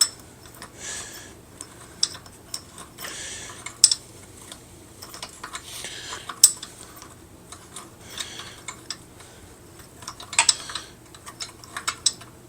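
Metal parts of an old bench vise clinking and scraping as they are handled and worked loose, with scattered sharp clicks and several short scrapes.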